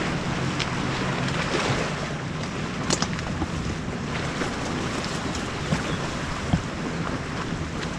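Steady wind noise rushing over the microphone, with a low steady hum underneath and a few faint ticks.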